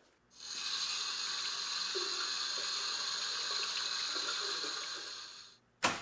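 Water running steadily from a tap: an even hiss that starts about half a second in and fades out near the end, followed by one sharp knock.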